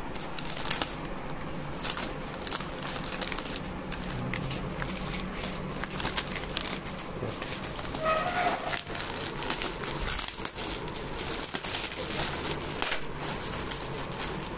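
Plastic wrappers of plaster of Paris bandage rolls crinkling and rustling as they are handled, a dense run of small crackles.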